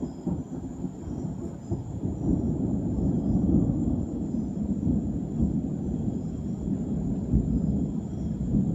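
Long rolling rumble of thunder that swells over the first two or three seconds, then rolls on steadily.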